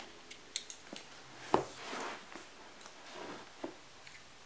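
A small blade slitting the clear tape seal on a cardboard box: a few light clicks and taps, a sharper tap about one and a half seconds in followed by a short scraping cut, and another scrape a little after halfway.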